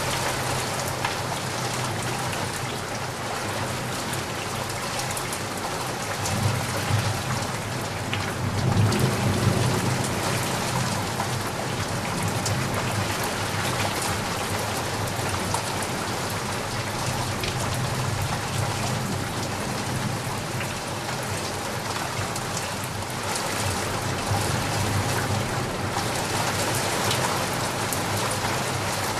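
Steady rain falling, with many small drop ticks. A low rumble of thunder swells up twice, about a quarter of the way in and again near the end.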